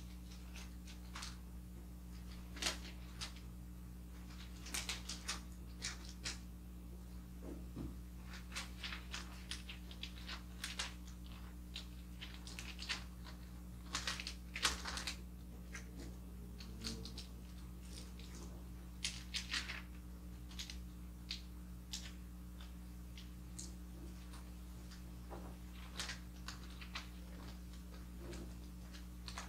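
Wrapping paper rustling and crinkling as it is folded and creased around a box in a diagonal wrap, with irregular sharp crackles throughout. A faint steady low hum runs underneath.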